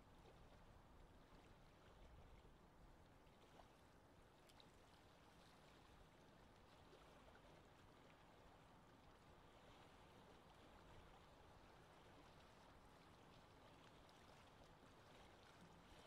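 Faint, steady lapping water: a soft, even wash of water sound.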